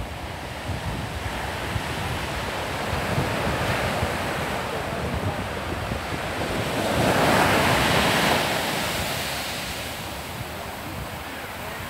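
Atlantic surf breaking and washing up a sandy beach, a steady rush that swells loudest about seven seconds in as a big wave crashes. Wind buffets the microphone.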